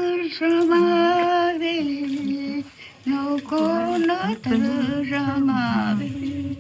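A woman singing a Shipibo song with no accompaniment, in long held notes that slide up and down between phrases.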